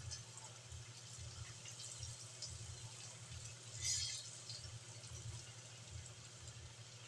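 Floured chicken pieces deep-frying in a wok of hot oil, a faint steady bubbling with light crackles. About four seconds in comes a short, louder sizzle as another piece goes into the oil.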